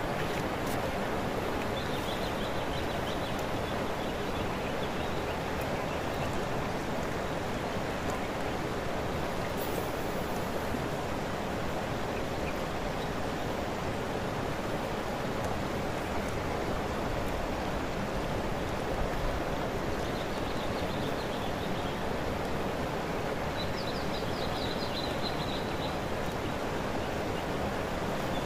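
Steady rushing outdoor ambience, with faint high chirping trills a couple of seconds in and again near the end.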